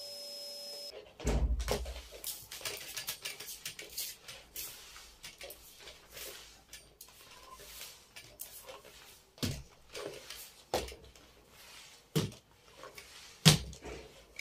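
A steady machine hum cuts off about a second in, followed by a string of knocks, clicks and rustles from household objects being handled and set down during cleaning, with a sharp knock near the end.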